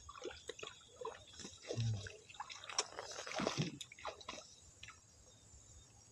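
Water splashing and dripping in small irregular bursts, dying away after about five seconds.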